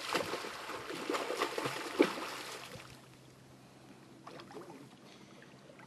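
Water splashing as a hooked shark thrashes at the surface. There is a sharper splash about two seconds in, and the splashing fades out by about three seconds.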